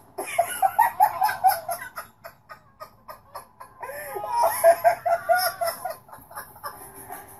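A person laughing hard in two bouts of rapid, high-pitched ha-ha pulses, each about a second and a half long, with a pause between them.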